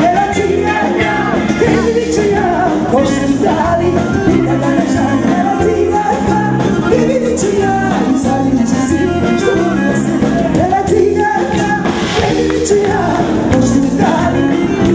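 A woman singing into a microphone over amplified band music with a steady beat, with guests singing along.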